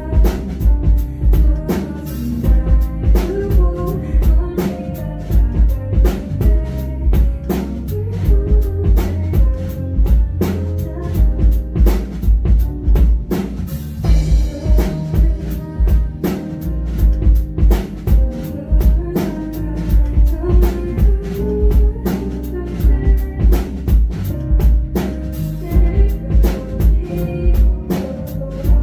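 Live band playing an instrumental passage: a drum kit keeps a steady beat of kick and snare hits under bass and sustained chords.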